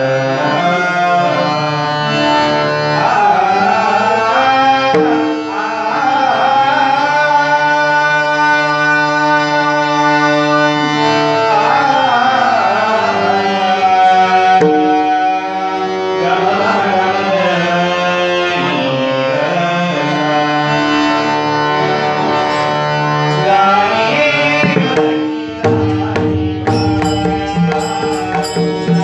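A Marathi abhang devotional song: a male voice sings long, sliding phrases over sustained accompanying notes, with pakhawaj drum strokes beneath. About 26 seconds in, the singing drops away and the pakhawaj plays a quick, dense run of strokes.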